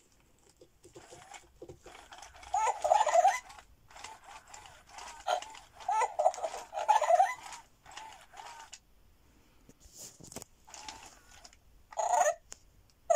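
FurReal Koala Luv Cub animatronic plush koala making its electronic baby-koala cries and chirps. The calls come in several short bursts with pauses between, as a hand presses the toy.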